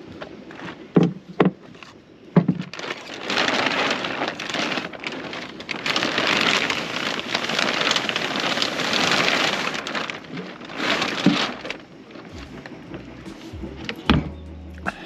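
A crinkly sheet cover being pulled and bunched up over a wooden deck hatch. A few sharp knocks come first, then several seconds of loud, uneven rustling and crackling. A couple more knocks follow as the wooden hatch is handled near the end.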